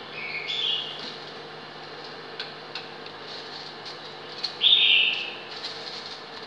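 Chicken broth boiling in a pot on an induction cooker while the foam is skimmed with a metal ladle: a steady hum with a few light clicks of the ladle. Twice, a short high-pitched sound of about half a second stands out as the loudest thing.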